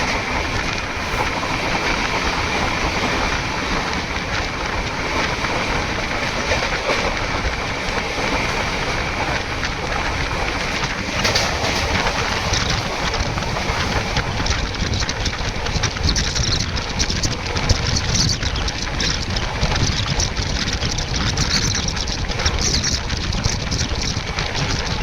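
Indian Railways Howrah Mail express train running along the track, a steady continuous rolling noise of wheels on rails.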